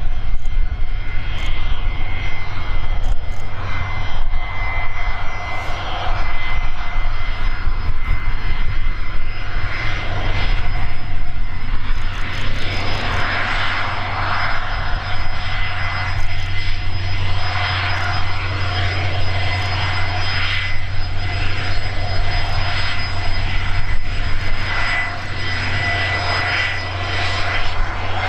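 Gulfstream G450's two rear-mounted Rolls-Royce Tay turbofans running at taxi power as the jet turns onto the runway: a steady whine with several high tones over a low rumble. The rush grows louder in the middle as the jet swings round.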